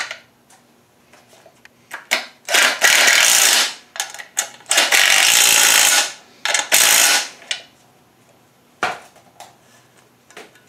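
Cordless ratchet with a 9/16 socket running a nut down in three bursts of about a second each, the first starting a couple of seconds in, with a few short clicks and knocks of metal parts being handled before and after.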